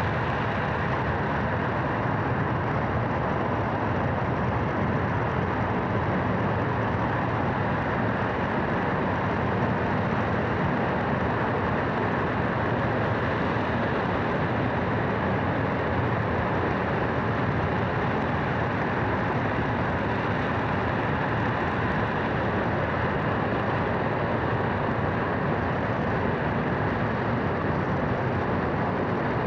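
F-1 rocket engine gas generator, a liquid-oxygen and kerosene burner, hot-firing on a test stand: a loud, steady rush of combustion noise from deep rumble up to hiss, with no change in level.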